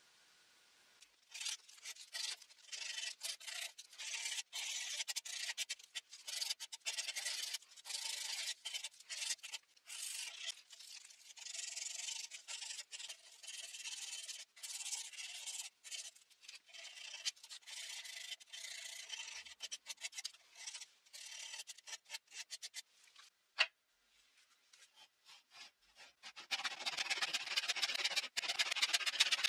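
Abrasive strip pulled back and forth around the neck of a turned oak peg, hand-sanding it in repeated short scratchy strokes. Near the end a handsaw starts cutting through the oak dowel with rapid strokes.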